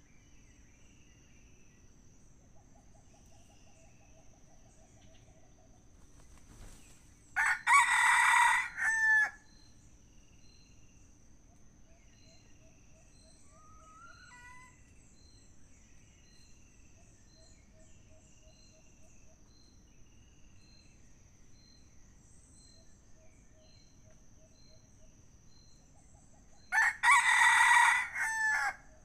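Red junglefowl rooster crowing twice, two short crows about twenty seconds apart, over a faint steady high insect drone and scattered small bird chirps.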